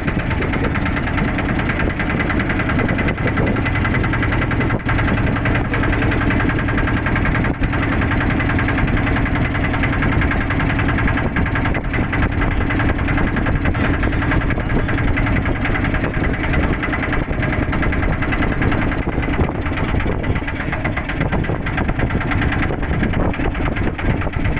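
Motorboat engine running steadily at an even speed, a continuous drone without pauses.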